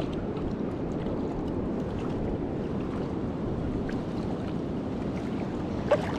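Steady low rush of river current mixed with wind on the microphone, with faint scattered ticks and one short sharp click near the end.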